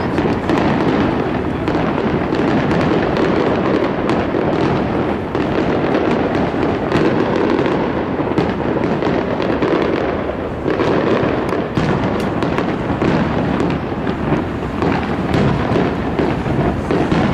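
Aerial fireworks bursting in a dense, rapid barrage: booms and crackles overlap continuously with no pause between shells.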